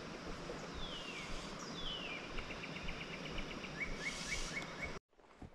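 A songbird singing over a steady outdoor hiss: a couple of descending whistled slurs, then a quick run of short repeated notes and about four short rising chirps. The sound cuts off abruptly about five seconds in.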